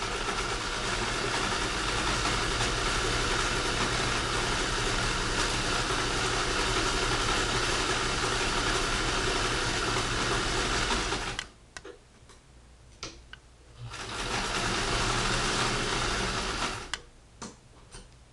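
A 1959 Singer Spartan sewing machine on a replacement motor runs fast under its foot pedal. It runs steadily for about eleven seconds, stops abruptly, and after a few clicks runs again for about three seconds before stopping.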